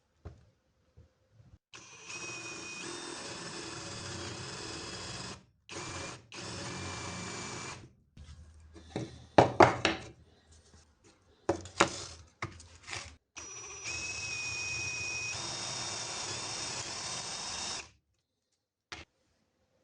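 Power drill running in three long bursts, its whine stepping in pitch as it works, with sharp knocks and clatter in the middle when it stops.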